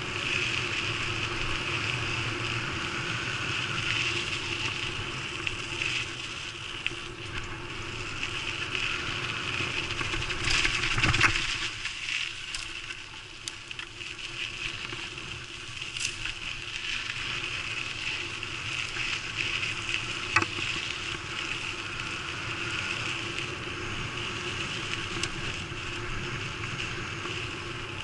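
Mountain bike rolling fast along a dirt singletrack: a steady buzzing hiss of tyres and drivetrain with wind. There is a louder bump about eleven seconds in and a couple of sharp clicks later.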